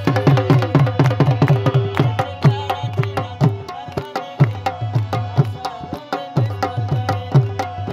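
Hand drums played in a fast, continuous rhythm, the deep strokes sliding down in pitch, over steady held notes from a melody instrument.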